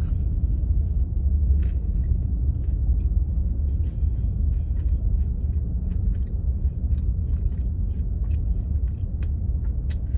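Steady low rumble inside a car's cabin, typical of the car idling, with faint soft clicks scattered through it.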